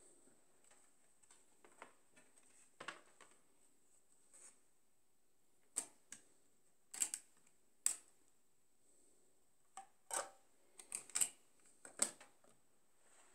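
Sharp plastic clicks and clatter from handling a Sony D-50 Discman portable CD player and a CD: scattered at first, then louder and closer together in the second half, ending with clicks of its front buttons being pressed.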